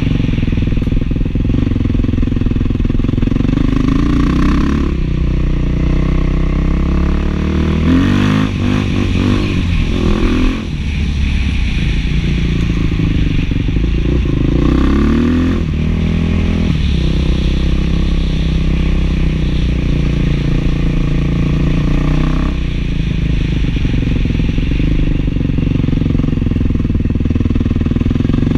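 Beta 500 dual-sport motorcycle's single-cylinder four-stroke engine, fitted with a new FMF 4.1 muffler, running hard under way. Its pitch falls and climbs again with the throttle a few times: about a third of the way in, around the middle and at the end.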